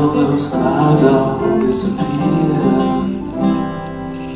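Live duet of grand piano and acoustic guitar playing a slow piece, with held notes, easing a little quieter toward the end.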